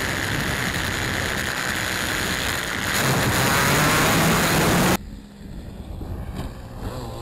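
Engine and wind noise of a Hangar 9 Alpha 60 RC model airplane heard through its onboard camera as it rolls down the runway, the engine note rising about three seconds in as the throttle comes up. About five seconds in the sound cuts abruptly to the same model plane's engine, much quieter and distant, heard from the ground.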